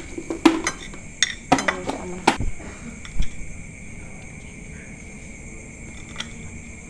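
Small kitchen knife clinking against a glass plate while shallots and chilies are sliced by hand over it. A quick run of sharp clinks comes in the first two and a half seconds, with a dull knock about three seconds in, then only an occasional tick.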